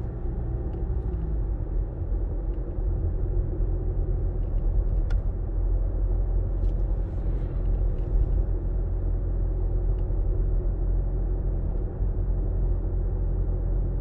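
Car engine and tyre noise heard from inside the cabin while driving: a steady low rumble, with a few faint ticks.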